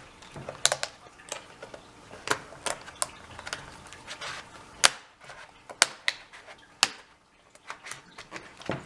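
Irregular sharp plastic clicks and taps from a Lenovo B570 laptop keyboard being pushed and pried up out of its frame. The loudest click comes about five seconds in.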